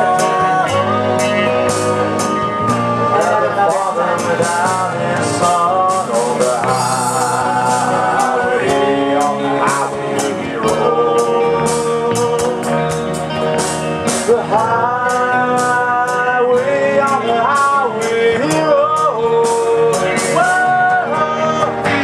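Live band playing a song on electric guitars, drum kit and keyboard, with cymbals crashing and a melodic lead line that bends in pitch.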